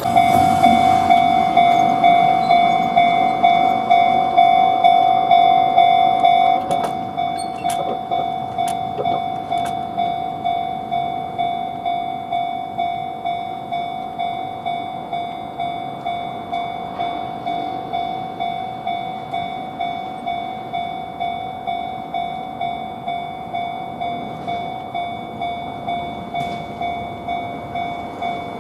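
Japanese level-crossing warning bell ringing its rapid, even "kan-kan" strikes, starting suddenly and staying loud for the first six seconds or so before dropping a little in level.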